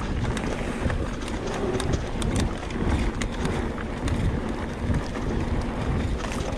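Specialized Turbo Levo electric mountain bike rolling fast down a dirt trail: tyre rumble on the ground with frequent small clicks and rattles from the bike, mixed with wind buffeting the microphone.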